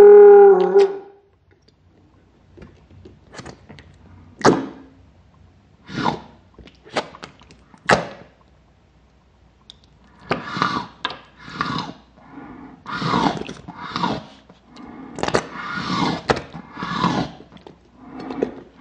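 Wet squelching, sticky pops and sucking of yellow slime as a rubber vomiting-egg squishy toy is squeezed and released: it spits the slime out and draws it back in. The squelches come as scattered faint pops at first, then louder, longer slurps in the second half. It opens with the end of a loud growling, retching voice.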